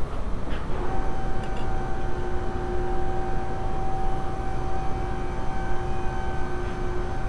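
A steady low mechanical rumble, joined about a second in by a steady whine that holds almost to the end.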